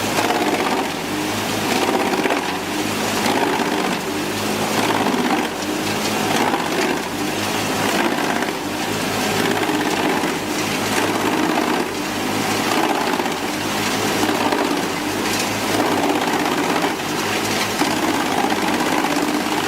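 Large wood chipper running, a steady dense grinding and engine noise that rises and falls slightly.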